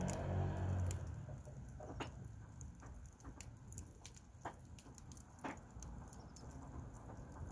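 Split firewood logs burning in a metal fire pit, crackling with sharp irregular pops over a soft hiss of flame. A low rumble fades away in the first second.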